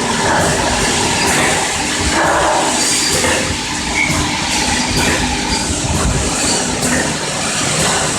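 A 4-nozzle piston pump filling and capping machine running: a steady mechanical clatter with irregular clicks and knocks.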